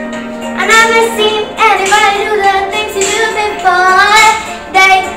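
A young girl singing a pop song in sung phrases, her pitch sliding up and down from note to note.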